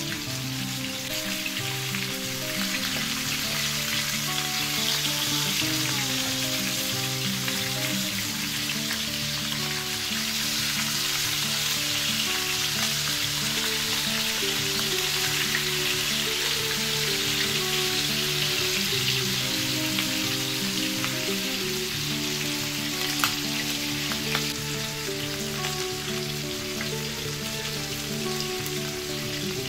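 Chicken drumsticks sizzling steadily as they fry in oil in a nonstick pan, over soft background music with held notes. A single sharp tap comes about three-quarters of the way through.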